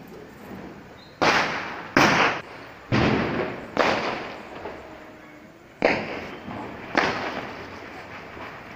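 Small Diwali firecrackers bursting on the ground: six sharp bangs at uneven gaps of about one to two seconds, each with a short fading echo.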